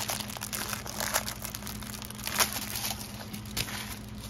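The clear plastic covering of a rolled diamond painting canvas crinkling as it is handled and laid down, with a few sharper crackles.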